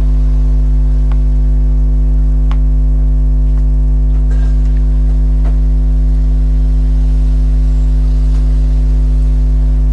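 Loud, steady low electrical hum that does not change, with a few faint clicks and taps from handling the fan's parts.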